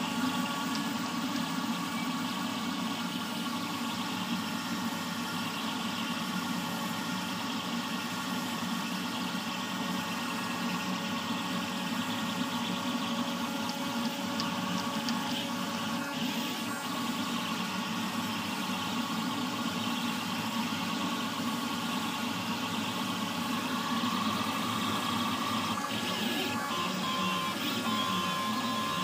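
Deltasine R3dback delta 3D printer running a print: its stepper motors whine with several held tones over the steady hum of the print head's cooling fan. A higher tone grows stronger near the end.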